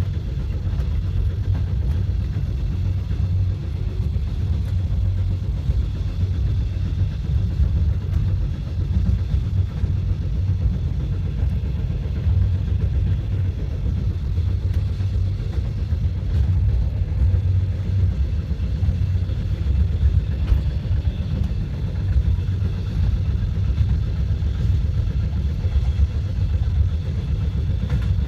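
Passenger train running steadily: a continuous low rumble with no marked changes.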